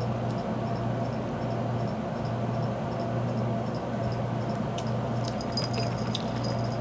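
Steady low background hum, with a few faint sharp clicks about five to six seconds in.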